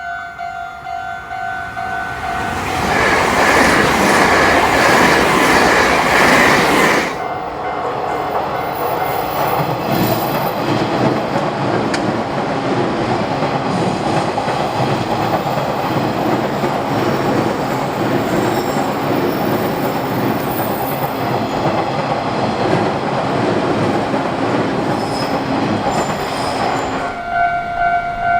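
Japanese railroad crossing's warning bell clanging, then drowned out by an electric train passing through the crossing. The train's noise and wheel clatter run for about twenty seconds, loudest in the first few seconds. The crossing bell is heard again near the end.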